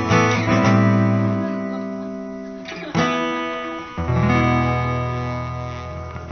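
Guitars playing a slow closing phrase: chords struck a few times, each left to ring and slowly fade, over a low bass note.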